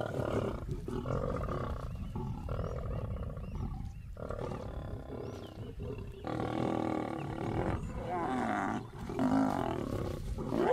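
Lions growling over a kill in repeated bursts, each a second or so long, as the males drive a lioness off the carcass and assert ownership of it.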